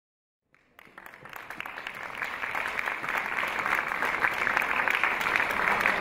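Audience applauding, starting about half a second in and swelling to a steady level within about two seconds.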